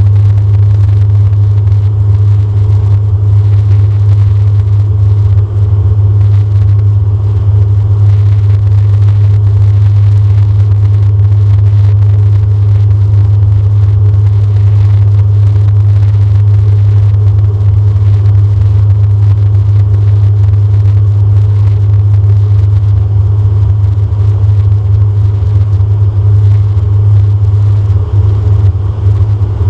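Cabin noise of a DHC-8 Q400 turboprop on final approach with its landing gear down. The PW150A engine's six-bladed propeller makes a loud, steady low drone.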